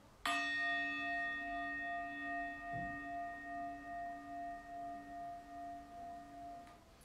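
A singing bowl struck once and left to ring, several steady tones fading with a slow wavering pulse before being cut short near the end. It is the closing bell that ends savasana.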